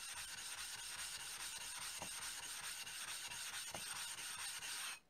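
A wet 400-grit water stone rubbed back and forth face-down on a diamond plate to flatten it: a steady scraping that cuts off abruptly near the end.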